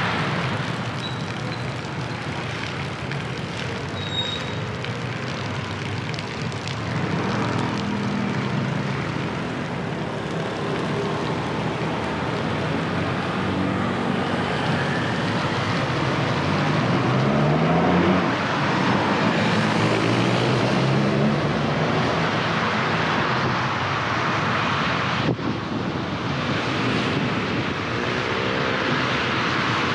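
Road traffic heard from a moving car: a steady hiss of tyres on wet road, with several vehicle engines accelerating in rising runs of pitch.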